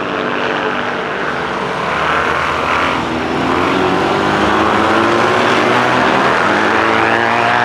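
Classic racing sidecar engines running hard, their pitch climbing as they accelerate and growing louder over the second half.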